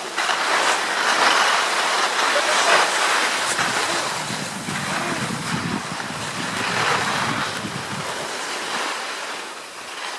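Skis sliding and scraping over hard-packed snow, a hiss that swells and fades, with wind buffeting the microphone as a low rumble through the middle.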